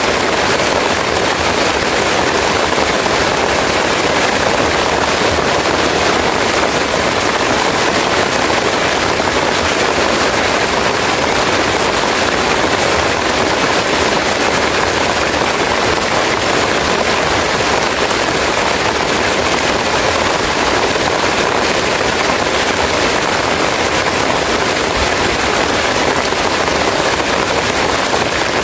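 Heavy rain pouring steadily onto banana plant leaves, an even, unbroken hiss.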